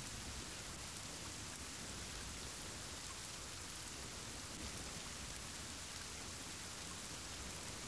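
Steady rain, an even hiss with nothing standing out from it.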